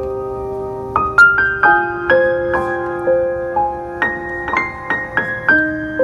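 Background piano music: a slow melody of struck notes and chords, each left to ring and fade.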